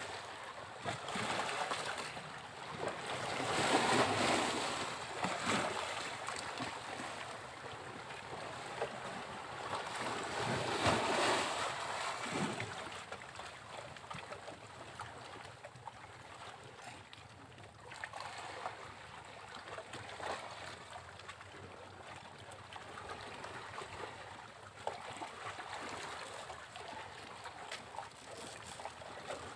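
Sea waves breaking on a beach: two larger waves crash about four and eleven seconds in, with the lower wash of smaller surf between and after them.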